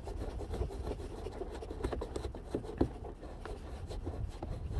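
A hand rubbing and scraping against the plastic wheel-arch liner and side-step fittings behind a front tyre, with a few small clicks.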